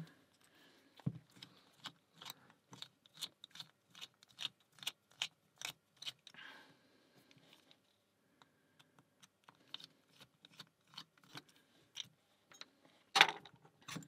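Small screwdriver working the little screws out of a brass Fichet Bauche safe lock: a run of faint metallic clicks and ticks, a few a second, with a brief scrape partway through and one louder clack near the end.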